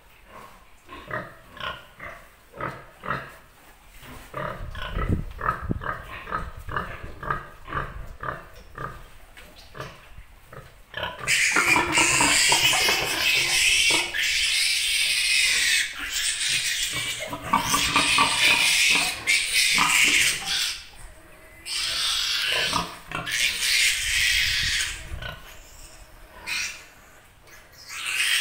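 Pig grunting in short, repeated grunts, then from about a third of the way in a piglet squealing loudly in long, high bursts with brief pauses, the distress squeal of a piglet caught and held for an iron injection.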